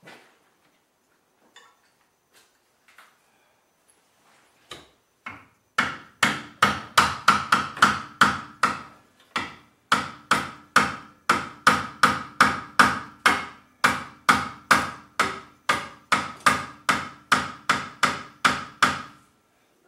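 Hammer blows on metal, a long steady run of about three strikes a second, each with a short metallic ring, starting about six seconds in after a few faint taps and pausing briefly twice.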